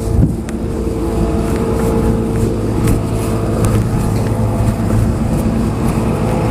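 An engine running steadily at an even pitch, a continuous low hum.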